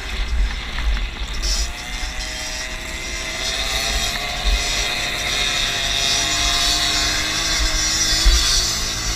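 A 50cc moped engine racing on a dirt track, its pitch rising and falling as the throttle opens and closes, with other moped engines close by. Wind buffets the microphone.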